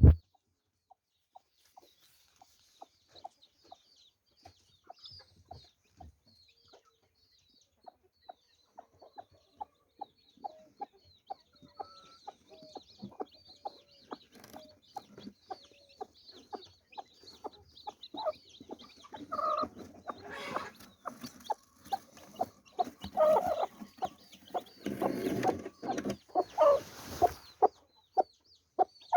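Baby chicks peeping in quick, high chirps, with a hen clucking among them. The clucking grows more frequent and louder over the second half, mixed with some louder noisy stretches.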